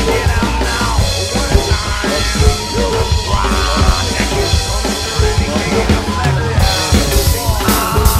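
Roland V-Drums electronic drum kit played along to a recorded alternative-rock track: a busy groove of kick, snare and cymbals over the track's bass line and sampled sounds, with no vocals.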